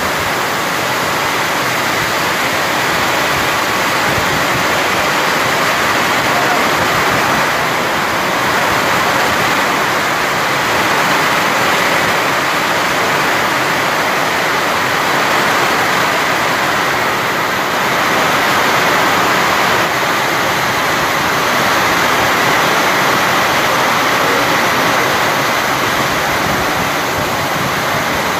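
Heavy monsoon rain pouring steadily, a dense, unbroken hiss that swells slightly now and then.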